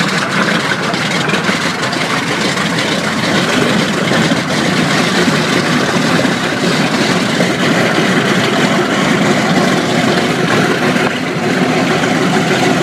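Big radial piston engines of World War II fighters running steadily at idle on the ground, a loud, continuous rumble.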